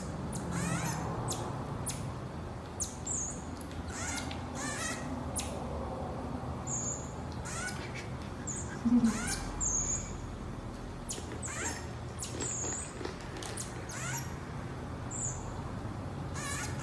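Common marmoset giving short, very high-pitched chirps every second or two while it feeds, with light clicks between them. There is one louder, low knock about halfway through.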